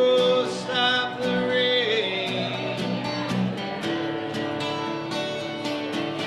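A man's voice holding a long sung note over a strummed acoustic guitar, the voice dropping out after about two seconds and the acoustic guitar strumming on alone through the song's closing chords.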